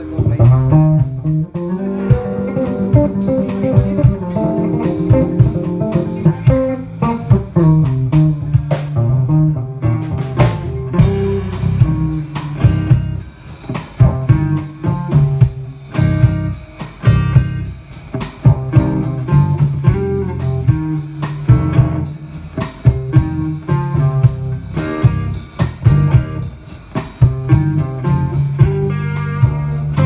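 Live band playing through amplifiers at a sound check: electric guitar, electric bass and drum kit together, with a strong bass line and regular drum hits.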